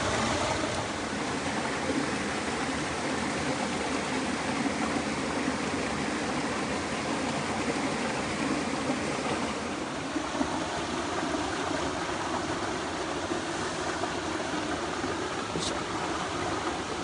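Mountain stream flowing steadily, a continuous rush of water.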